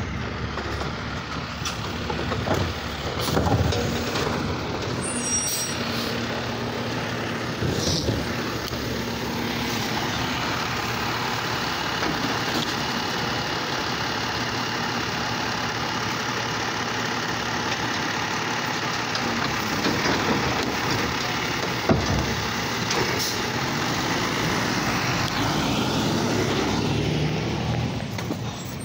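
Automated side-loader garbage truck running steadily while its hydraulic arm grabs, lifts and empties a wheeled trash cart into the hopper. A few sharp knocks come from the arm and cart.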